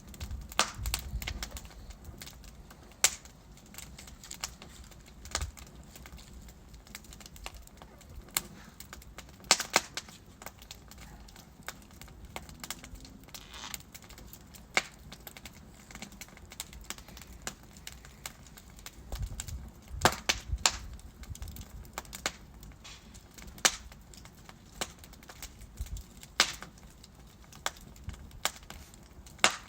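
Wood fire burning in a fireplace, crackling and popping irregularly over a low rushing hiss, with several louder sharp pops and a few low rumbling flare-ups.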